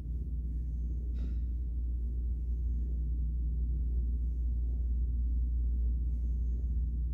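Steady low hum, with faint brief sounds every couple of seconds and a short click about a second in.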